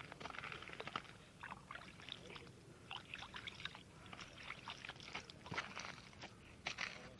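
Snow and slushy ice crunching and crackling: many short, irregular crunches.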